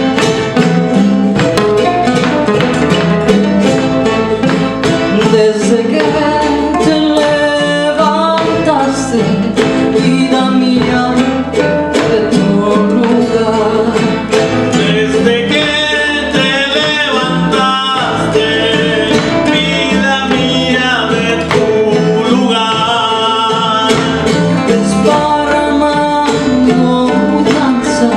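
Son jarocho ensemble playing live: strummed jaranas and a plucked requinto jarocho over bass and percussion, with voices singing a verse in the middle stretch.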